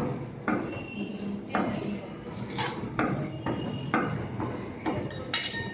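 Metal spatulas scraping and tapping on a stainless steel cold plate as an ice cream layer is spread and squared off. It comes as irregular clinks and scrapes, with the sharpest one near the end.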